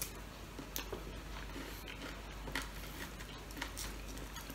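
Faint, scattered small clicks and crackles as fingers pull apart a piece of cooked chicken.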